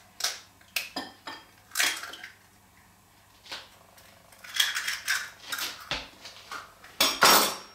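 A kitchen knife tapping an egg shell in a few sharp clicks to crack it over a glass mixing bowl. Later come clinks and clatter of a utensil against the glass bowl, loudest near the end.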